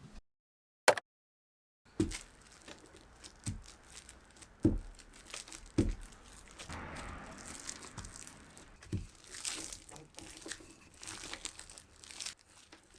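Crinkling and tearing of wrapping material, with a few light knocks of kitchen things set down, during tart preparation. About a second in there is one sharp click inside a short stretch of dead silence.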